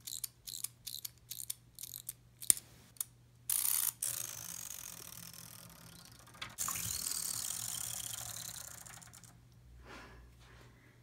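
Clockwork wind-up swimming mermaid toy being wound: a quick run of ratchet clicks from the winding key for about three seconds, followed by stretches of hissing noise.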